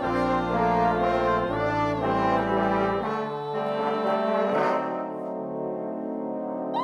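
Multitrack brass ensemble of French horns, trumpets and euphonium playing slow sustained chords, which grow softer and lose their low notes about three seconds in. Right at the end an otamatone's sliding electronic tone cuts in, bending up and then down.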